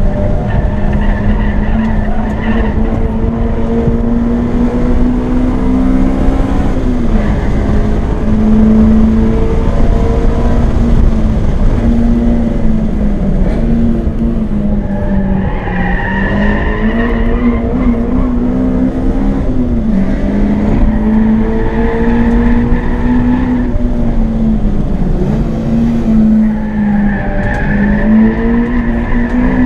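Acura RSX's four-cylinder engine heard from inside the cabin under hard track driving, its pitch climbing and dropping away at each gear change. The tyres squeal through corners about halfway through and again near the end.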